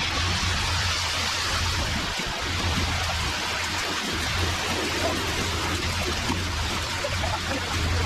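Steady rushing, pouring noise over the low hum of a running diesel engine, as of wet concrete sliding down a ready-mix truck's chute during a slab pour.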